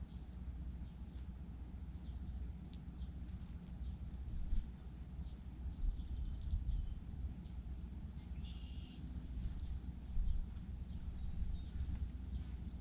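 Blackbirds feeding, giving many short chirps and calls, with a falling note about three seconds in and a buzzy call about halfway through, over a steady low rumble.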